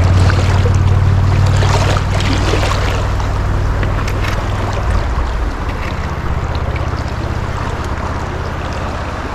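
Shallow river running fast over riffles, with a steady low rumble on the microphone that comes in suddenly just before and slowly eases.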